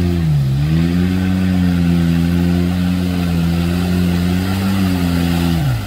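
Off-road 4x4's engine running hard under load at high revs, its pitch dipping briefly and climbing back about half a second in and again at the very end.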